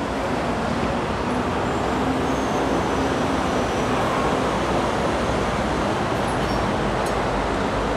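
Steady, even noise of passing vehicles, with a faint low hum that fades out in the first few seconds.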